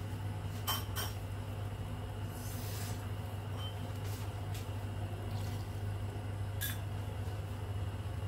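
Pot of noodle broth heating on a lit gas burner, coming up to the boil: a steady low hum, a few faint clicks about a second in and again near the end, and a brief soft hiss about two and a half seconds in.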